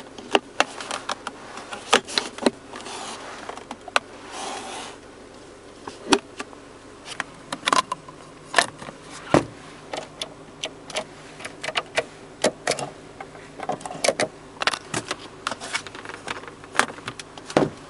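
Irregular plastic clicks and taps from a 2004 Hyundai Elantra's interior trim being handled, the centre armrest and then the sun visor, over a steady low hum.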